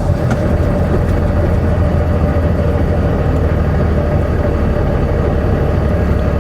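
Steady hum of a semi-truck's diesel engine and road noise, heard from inside the cab.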